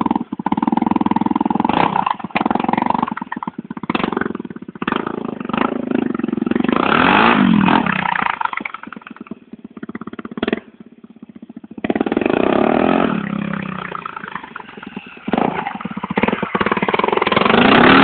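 Honda XL250R motorcycle running on a transplanted XR250 Tornado single-cylinder four-stroke engine, ridden and revved, its pitch rising and falling several times. The engine sound drops away for about two seconds past the middle, then picks up again.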